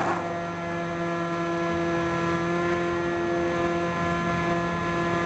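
HobbyKing Bix3's brushless electric motor and pusher propeller running at a steady takeoff throttle, recorded on board the plane: a steady buzzing whine that holds one pitch.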